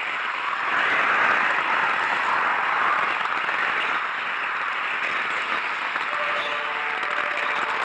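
Running noise of an N-gauge model train carrying an onboard camera: a steady rushing rattle of small wheels rolling on the track. Faint thin steady tones join in over the last couple of seconds as it rounds a curve.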